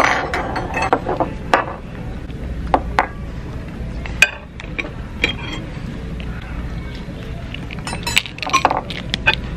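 Scattered sharp clicks and clinks of a metal shell cracker and utensils against lobster shell and plates, the loudest about four seconds in and a cluster near the end, over a low room hum.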